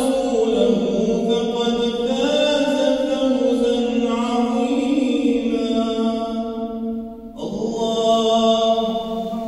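A man chanting Arabic prayer recitation solo in long, held melodic phrases, with a short breath break about seven seconds in. The voice echoes in the large mosque hall.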